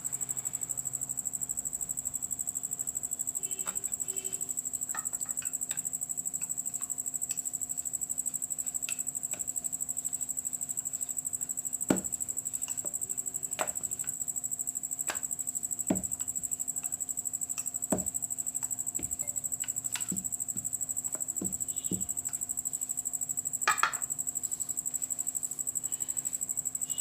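Rolling pin working paratha dough on a rolling board, with a handful of sharp wooden knocks scattered through the second half, over a constant high-pitched chirring hum.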